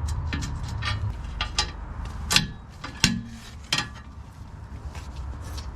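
Hand tools clinking and knocking against metal as a part on the truck is worked loose: a string of light metallic clicks with a few sharper knocks in the middle. A low rumble underneath dies away about a second in.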